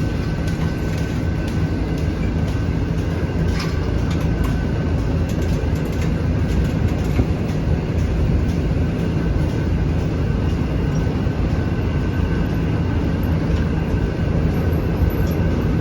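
Dairy milking parlor machinery running: a loud, steady mechanical hum with a constant whine above it and a few faint clicks, as from the milking system's vacuum pump and milking units.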